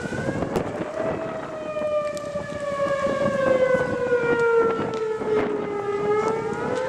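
Outdoor tornado warning siren wailing steadily. Its pitch falls slowly, then rises again near the end.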